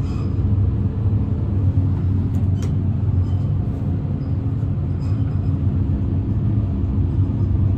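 Elevator car descending: a steady low rumble and hum from the moving cab and its machinery, with a few faint clicks about two and a half seconds in and again about five seconds in.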